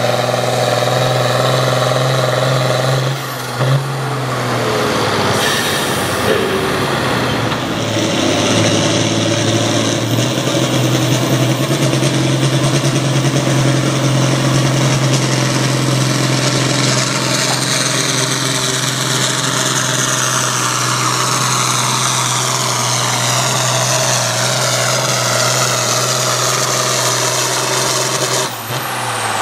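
Turbocharged diesel farm tractor engines running hard under full load while pulling a weight-transfer sled: first a John Deere, then, after a break about three seconds in, an International Harvester Turbo. Over the second half a high whine slowly falls in pitch as the engine is pulled down near the end of the run.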